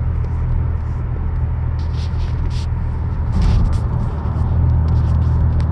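Steady low road and engine rumble inside a 2017 Chevrolet Impala's cabin, cruising at about 60 mph, growing slightly louder about three seconds in.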